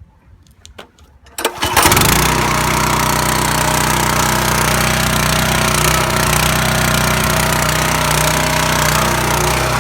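Small gas engine of a residential pressure washer being started: a few light clicks, then it catches about a second and a half in and runs steadily.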